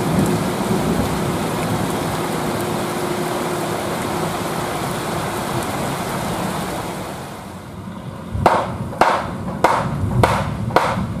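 Heavy rain pouring steadily. After about eight seconds the rain gives way to a rhythmic run of sharp knocks, about two a second.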